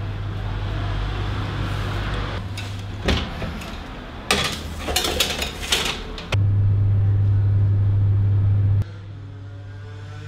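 Electric oven humming steadily, with sharp clatters of a metal baking tray knocking against the oven rack as it is slid in, about three to six seconds in. The hum then jumps much louder for a couple of seconds and drops back suddenly.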